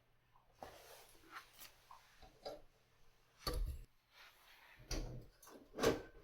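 Irregular clicks and clunks of objects being handled, with three louder knocks in the second half; a faint low hum fades out at the start.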